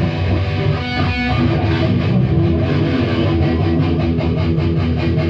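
Rock band playing electric guitars and a Mapex drum kit together at a loud, steady level, settling into a quick, even beat about a second and a half in.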